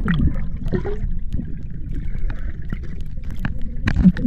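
Pool water heard from a microphone held under the surface: a muffled low rumble of moving water with many short clicks and knocks.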